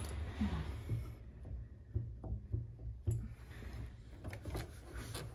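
Scattered light clicks and knocks from hands handling the brass pedal rods and lock nuts under a grand piano, over a low steady rumble.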